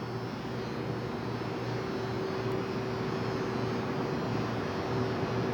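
Steady background hum and hiss, with a constant mid-pitched tone starting just after the beginning and a low drone underneath; machine-like and unchanging.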